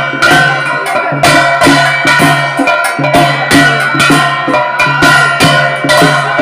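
Handheld brass plate gong struck in a steady rhythm, about two to three strokes a second, the metal ringing on between strokes.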